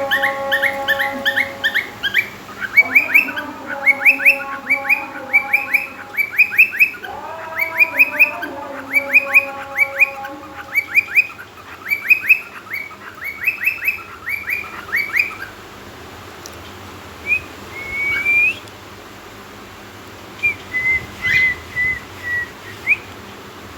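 Male cockatiel singing: quick runs of short, rising whistled chirps, several a second, over lower held notes, for about the first fifteen seconds. After that come a few single drawn-out whistles.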